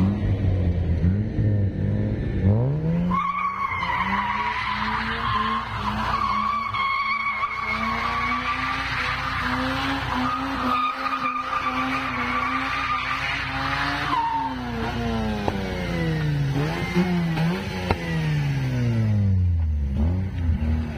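Mazda RX-8's rotary engine held at high revs while it spins donuts, its rear tyres squealing steadily for about ten seconds. About two-thirds of the way through, the revs drop and the engine is blipped up and down several times.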